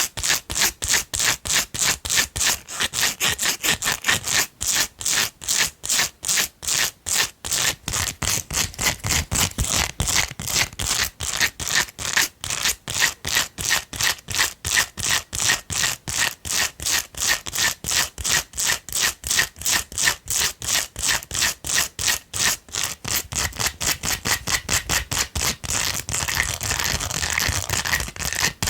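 Long fingernails scratching fast and rhythmically over a silicone brush, about three to four strokes a second. Near the end the strokes blur into a smoother rubbing.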